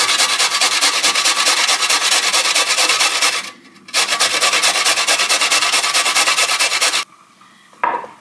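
A carrot being grated on a stainless-steel box grater: rapid, even rasping strokes, with a short break about three and a half seconds in, stopping about seven seconds in.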